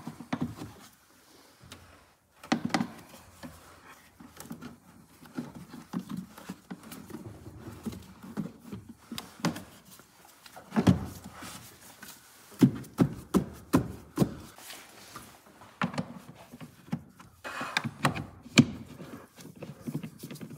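Plastic engine-cover trim pieces and fasteners being handled and pressed into place: irregular clicks, taps and knocks, with busier clusters about a quarter, half and most of the way through.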